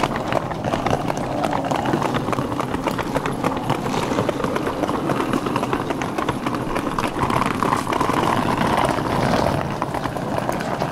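Footsteps of several people walking on a paved platform, with the wheels of a rolling suitcase running along behind them, a steady patter of small clicks throughout.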